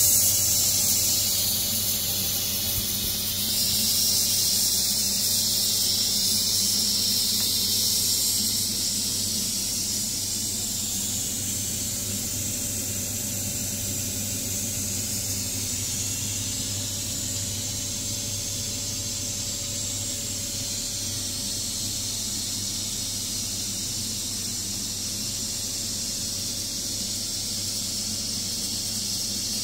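Ninja Foodi MAX multi-cooker venting steam through its pressure release valve in a quick release after pressure cooking. It makes a steady hiss that slowly tapers off.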